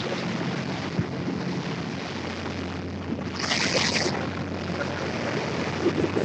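A small boat's engine running steadily under wind noise on the microphone and the wash of choppy water, with a short burst of hiss about three and a half seconds in.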